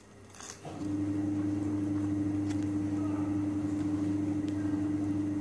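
A steady low machine hum at one unchanging pitch starts about a second in and runs on, with a few faint clicks.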